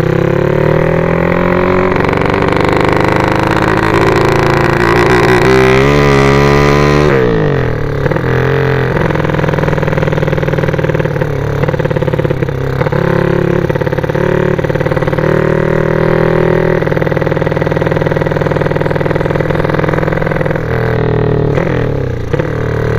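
Small motorcycle engine on a home-built bicycle-frame bike (a "sleep engine") running loud while riding. The revs rise and waver from about four seconds in, drop suddenly about seven seconds in, then hold fairly steady.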